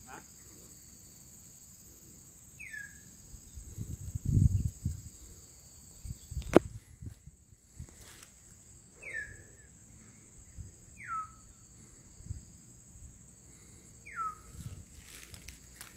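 Insects droning steadily at a high pitch, while a bird gives a short falling whistle four times. A dull thump comes about four seconds in, and a sharp click about two seconds later.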